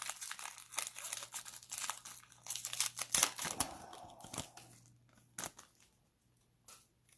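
Foil trading-card pack wrapper crinkling and tearing as it is ripped open by gloved hands. The crinkling dies away after about four seconds, leaving a couple of soft clicks.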